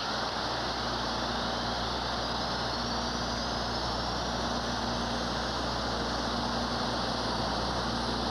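SR-71's Pratt & Whitney J58 jet engine spooling up: a steady rush over a low hum, with a whine that rises slowly in pitch over about six seconds and a fainter, higher whine climbing near the end.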